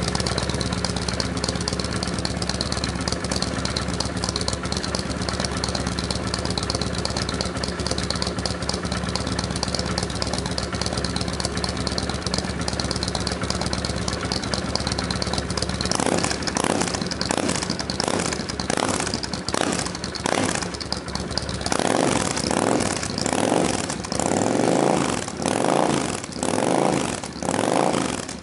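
Honda Shadow 750's V-twin engine running through a Scorpion sport exhaust with removable silencers. It idles steadily, then a little past halfway the throttle is blipped in short revs. Near the end it is revved again and again, rising and falling about every second and a half.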